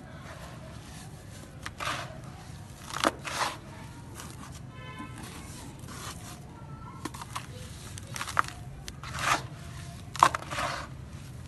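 Dry grey sand-cement lumps crumbled between the fingers, with crumbs and dust falling into a bowl: several short crunches, the loudest near the end.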